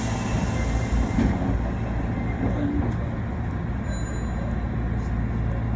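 Osaka Municipal Subway 22 series train running, heard from inside the car: a steady low rumble of wheels on rail and running gear.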